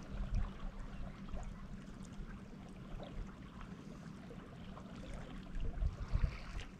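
Wind rumbling on the microphone, with small waves lapping and splashing at the shoreline rocks; the wind swells a little near the end.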